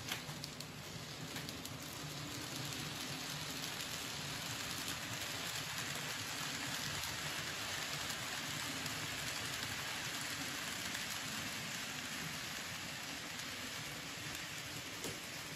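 Model freight train of tank and hopper wagons rolling past close by: a steady rushing hiss of wheels on the rails that swells to its loudest about midway and eases off toward the end, over a low steady hum.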